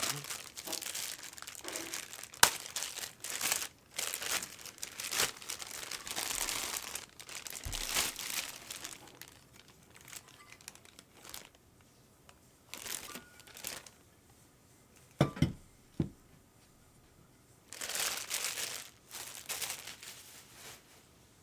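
Packaging being handled and unwrapped: crinkling and tearing in bursts, with sharp clicks. A couple of knocks come about fifteen seconds in, and another burst of crinkling follows.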